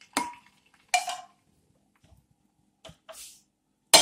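Spatula knocking and scraping against a metal pan and steel pot as roasted cowpeas are tipped into water: about five short, separate clanks and scrapes, the loudest near the end.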